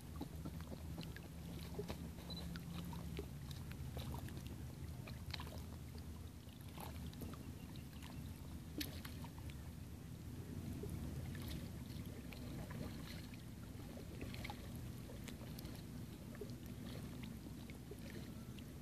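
Small ripples lapping at the water's edge, with many light, scattered clicks and small splashes, over a faint, steady low hum.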